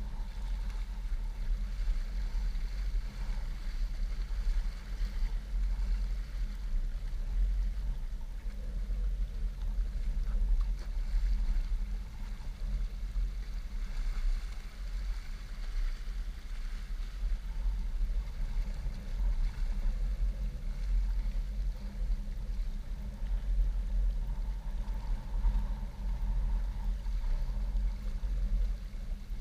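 Wind buffeting the microphone, a steady low rumble that rises and falls in gusts, over small waves lapping and splashing against shoreline rocks.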